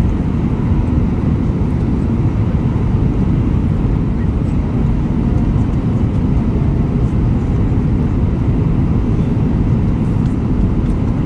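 Airbus A321 cabin noise during the approach to landing: a steady low rumble of engines and rushing air, heard inside the cabin.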